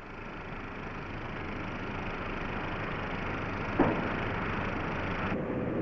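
Steady mechanical running noise from site machinery, slowly growing louder, with a single knock about four seconds in; the higher hiss drops away shortly before the end.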